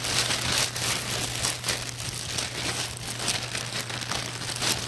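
Clear plastic packaging crinkling and rustling in quick, irregular bursts as it is handled, over a steady low hum.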